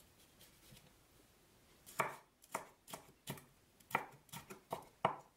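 Chinese cleaver cutting red bell pepper into sticks on a wooden cutting board: faint scraping at first, then about eight quick chops, two to three a second, starting about two seconds in.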